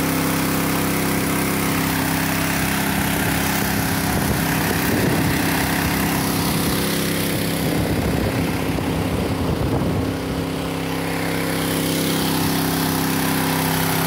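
Small gasoline-engine portable water pump running steadily, with the hiss and splash of water jetting from its hose onto rock.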